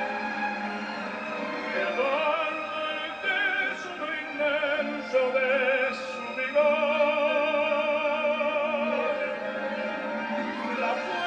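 A man singing in an operatic style into a microphone with orchestral accompaniment, his long held notes wavering with a strong vibrato.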